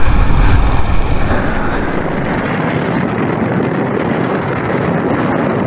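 Riding noise from a Royal Enfield Himalayan 411's single-cylinder engine running on a dirt track, mixed with wind noise on the camera microphone. Heavy low buffeting for the first two seconds eases to a steadier rush.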